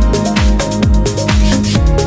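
Electronic dance music with a steady kick-drum beat, about two beats a second.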